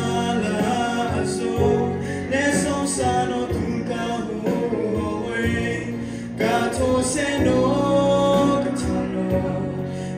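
A man singing a solo song into a microphone over instrumental accompaniment.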